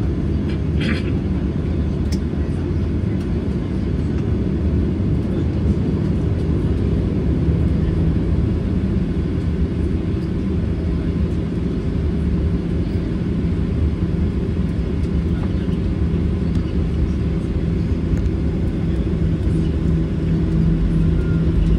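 Boeing 737-800 cabin noise: the CFM56 engines' steady low drone and rumble. A hum in it grows stronger over the last several seconds, and the overall level rises a little near the end.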